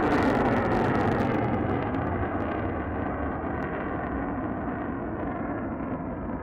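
Mitsubishi F-2 fighter's single F110 turbofan in afterburner, climbing away after takeoff. The jet noise fades steadily, and its hiss dulls about a second and a half in as the aircraft draws off, leaving a low rumble.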